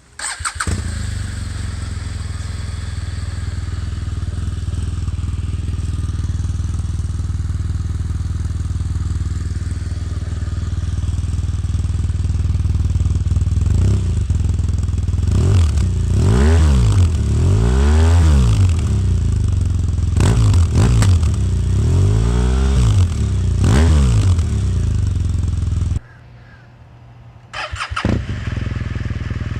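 2016 BMW R1200RS's boxer twin starting and idling steadily, then revved in a run of quick throttle blips, each rising and falling in pitch. The sound cuts away suddenly near the end, and the engine starts up again just before the end.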